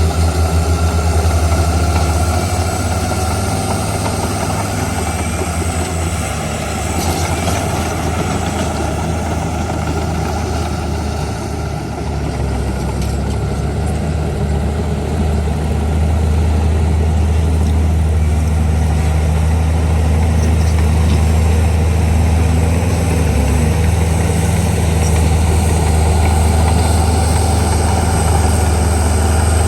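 Heavy construction-machine diesel engine running steadily with a deep hum, growing a little louder about halfway through.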